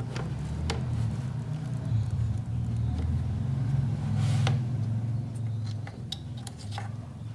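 Steady low hum under scattered small clicks and taps, typical of hands working a memory card out of an opened electronic drum pad's internals.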